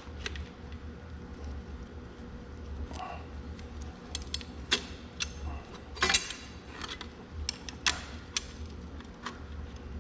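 Scattered light metallic clicks and clinks, a dozen or so at uneven intervals, from handling a steel seal retainer and its bolts on a tractor axle housing, over a steady low hum.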